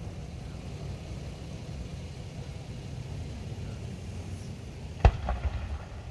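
Fireworks: a low, steady rumble, then one sharp aerial shell burst about five seconds in, followed by a few smaller crackles.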